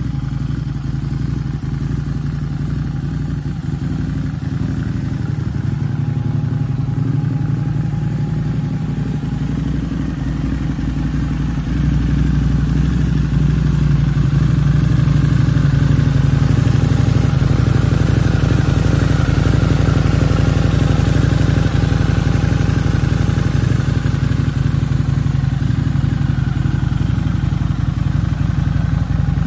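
Harley-Davidson V-Rod Muscle's 1250 cc Revolution V-twin idling steadily through an Akrapovič exhaust. It gets louder about twelve seconds in and then holds steady.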